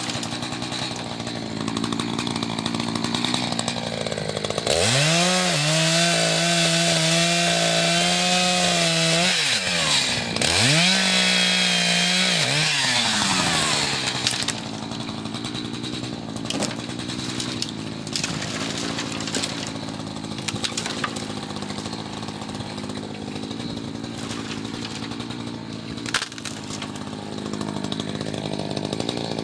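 Two-stroke chainsaw idling, then revved to full throttle about five seconds in and held there for roughly five seconds, let off, and revved again for about two seconds before dropping back to idle.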